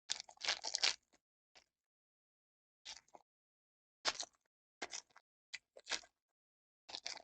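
Foil trading-card pack being torn open and its cards handled: short bursts of crinkly tearing and rustling, the longest and loudest in the first second, then several brief ones.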